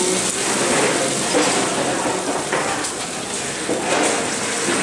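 Tomato sauce sizzling in a hot steel wok, a steady hiss.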